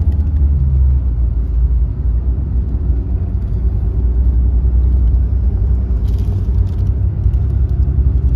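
Steady low rumble of a Mercedes-Benz OH 1626 sleeper bus under way, engine and road noise heard from inside the passenger cabin.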